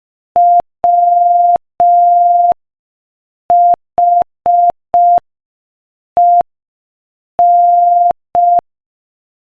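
Morse code practice tone at 5 words per minute: one steady beep keyed in short and long elements, spelling the word "WHEN" (dit-dah-dah, four dits, one dit, dah-dit).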